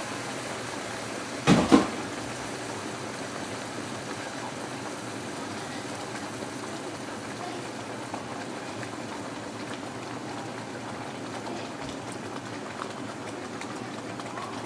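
Water and tomato sauce boiling in a pan of browned rice, a steady bubbling. About a second and a half in, a brief loud sound cuts across it.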